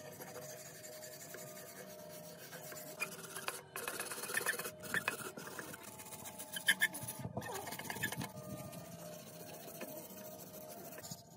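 A hand wire brush scrubbing rust off the metal body of an antique Mitsubishi sewing machine in quick scratchy strokes, broken off briefly twice.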